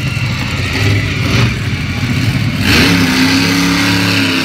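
Monster truck engines revving as the trucks drive across the arena. About two-thirds through, one engine revs up slightly and holds a steady, loud note.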